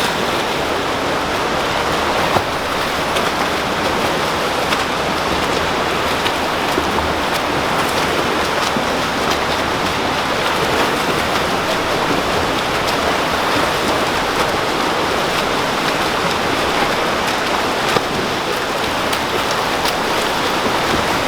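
Steady wash of splashing, churning pool water from swimmers swimming laps.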